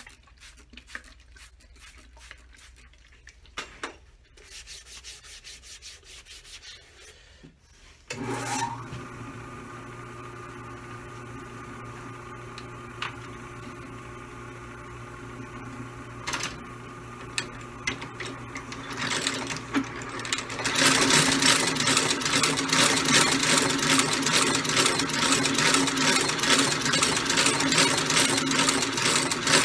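Shoe-repair sole-stitching machine. Small handling clicks come first, then about eight seconds in its motor starts and runs with a steady hum. From about two-thirds through it stitches the new leather sole with a louder, fast, even clatter.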